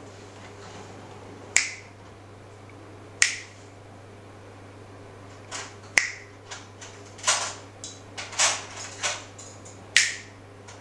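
Sharp finger snaps, four of them a few seconds apart, with a run of softer, short hissing noises between them in the second half.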